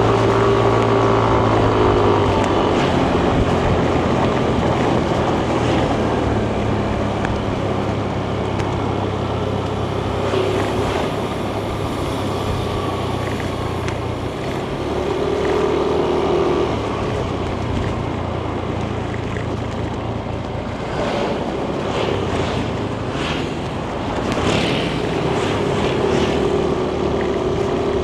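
Yamaha Nmax 155 scooter's single-cylinder engine running under way, with wind noise on the microphone. Its pitch falls over the first couple of seconds as the scooter eases off, then it settles to a steady, lower cruising note.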